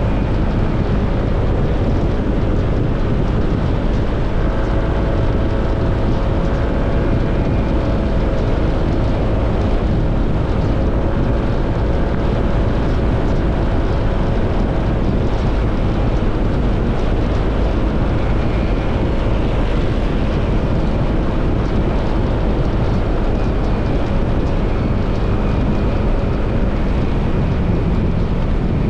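Motorcycle riding at road speed: the engine runs steadily under a heavy, continuous rush of wind on the microphone.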